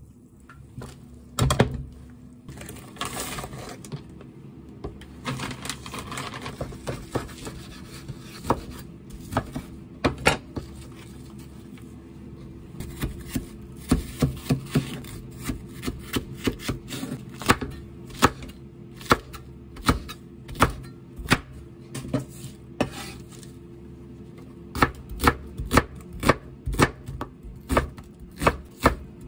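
A cleaver-style kitchen knife chopping green onion and then onion on a wooden cutting board, in single strokes about one a second that come faster near the end. There is a single knock about a second and a half in.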